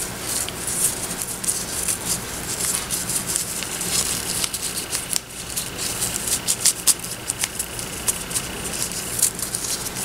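Close-up rustling and crinkling of red stitched-edge ribbon being tied into a bow by hand, with many small ticks and scrapes of the ribbon and string, busier in the second half.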